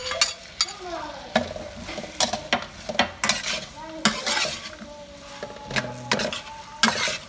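Metal spatula stirring and clacking against a pan in quick, irregular strokes while pork and holy basil sizzle in hot oil.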